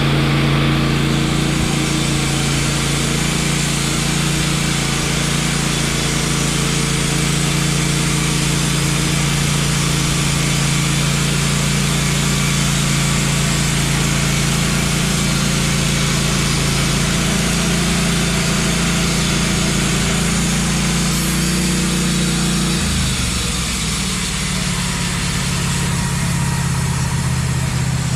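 Wood-Mizer LT15 bandsaw mill's engine running steadily while the blade cuts a pine log, with a continuous hiss from the cut. The engine note shifts near the end.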